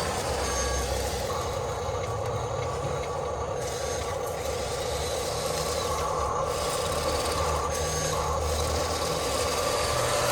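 Electric motors and gearboxes of toy RC excavators whirring steadily. Several whines start and stop and shift slightly in pitch as the machine's functions are worked.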